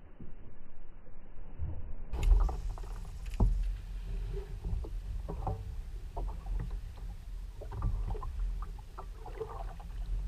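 Water slapping against a Hobie Revo 13 plastic kayak hull, with wind on the camera microphone making a low rumble that grows louder about two seconds in. Scattered knocks and clicks from the rod and reel being handled sit on top, the loudest two about two and three and a half seconds in.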